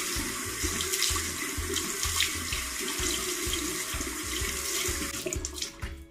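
Tap water running and splashing into a sink as a face is rinsed clean of soap. It is steady and tails off near the end.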